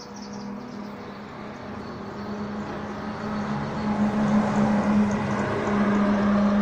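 A steady, low engine hum at an unchanging pitch, growing gradually louder.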